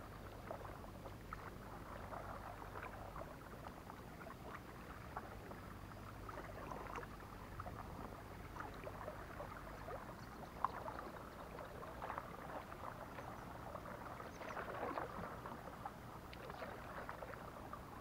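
Kayak paddle strokes dipping and splashing in the water, coming irregularly every second or two, with one sharp knock about ten and a half seconds in.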